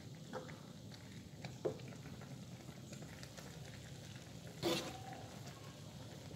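A wok of soup simmering on the stove while a metal ladle stirs it, scraping and tapping against the pan a few times. The loudest is one short clank about four and a half seconds in.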